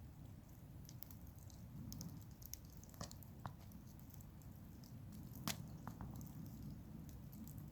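Wood campfire burning: scattered small crackles and snaps over a low steady rumble, with one sharper pop about five and a half seconds in.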